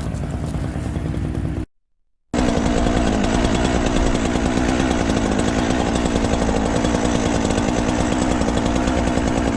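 Gasoline chainsaw engine running. A motor is already running at the start; the sound cuts out completely for about half a second, then the chainsaw runs loud and steady to the end.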